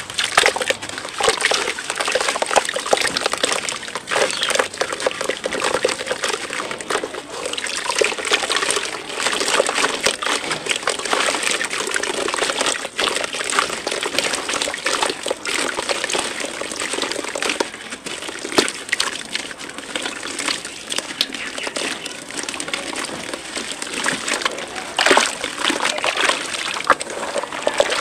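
Wet red dirt crumbled by hand into a tub of muddy water: lumps breaking off and splashing in, and hands sloshing through the thick mud slurry, with a continuous crackly wet splashing.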